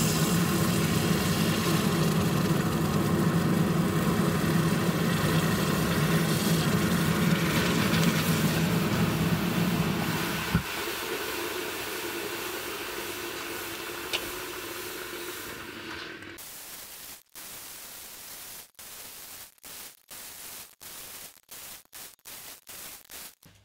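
Orange-hot steel spring fuller quenched in a bucket of water: a loud sizzling hiss with a low steady roar underneath, both cutting off abruptly about ten seconds in. A quieter hiss then fades away and breaks up into short chopped bits near the end.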